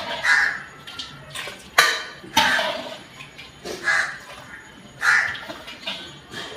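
Metal ladle scraping and knocking against a kadai as curry is scooped out, with two sharp clacks around two seconds in. Crows caw about once a second.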